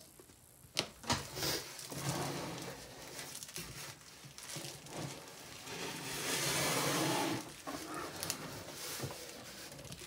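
Handling noise from working a SATA cable inside a desktop computer case: scattered clicks and light knocks, with a longer stretch of rustling and scraping about six seconds in.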